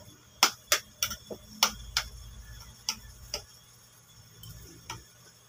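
Metal cutlery clinking against a ceramic plate during a meal. There is a quick run of sharp clinks in the first two seconds, then a few more spaced out.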